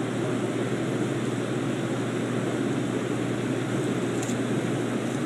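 Steady low machine drone with a constant hum, running evenly throughout; a faint click about four seconds in.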